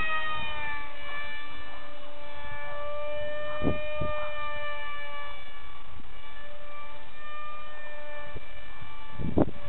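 Electric brushless inrunner motor of a small foam RC jet whining steadily as the model flies overhead, its pitch dipping slightly in the first second. A few low thumps come in near the end.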